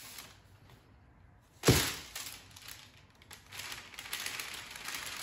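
One hard thump on the kitchen counter about a second and a half in, as the upturned banneton basket of sourdough dough is brought down onto parchment paper, followed by a steady rustle of parchment paper being handled under the basket.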